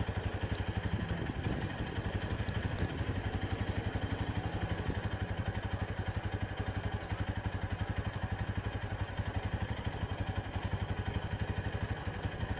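Pickup truck engine running at low speed as the truck creeps along a sandy track, a steady low throb with even, rapid pulses.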